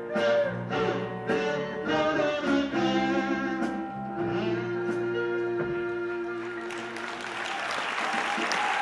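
Closing bars of a live band song, harmonica played into a microphone over guitar, ending on a long held note. Audience applause rises in the last couple of seconds.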